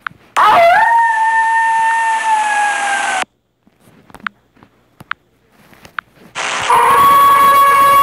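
Recorded wolf howl played back from a phone sound app: one long howl that rises at the start, then holds and slowly falls in pitch, cutting off suddenly after about three seconds. A few faint clicks follow, then a second long, steady, high tone starts about six seconds in.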